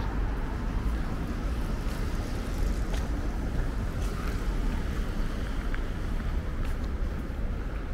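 Steady street ambience: the low rumble of city traffic, mixed with wind buffeting the microphone.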